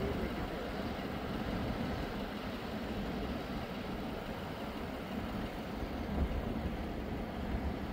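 Large four-wheel-drive farm tractor's diesel engine running steadily as the tractor drives through a flooded field, pulling a cage-wheel implement through the water.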